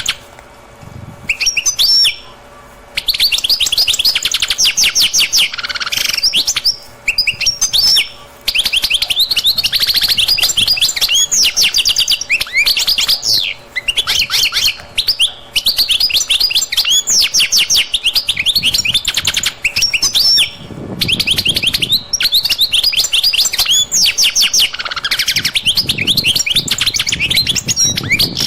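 Many small birds chirping together in a dense, rapid chatter, coming in long runs with short pauses between them.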